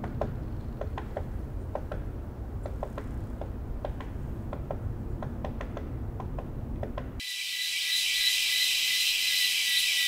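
Outdoor ambience: a low rumble with many scattered, irregular sharp ticks. About seven seconds in it cuts abruptly to a louder, steady high-pitched hiss with a constant whine running through it.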